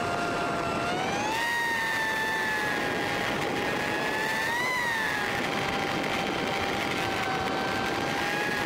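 Honda Nighthawk 750's inline-four engine running at cruising speed, with steady wind and road rush. Its pitch climbs about a second in and swells briefly near the middle before settling.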